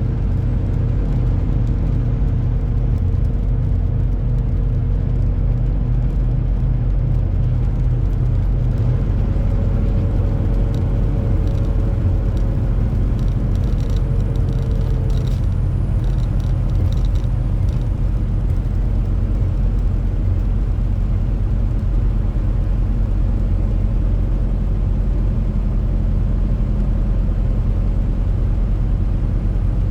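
Tractor-trailer truck driving, a steady low rumble of engine and road noise, with a faint humming tone that fades out about halfway through.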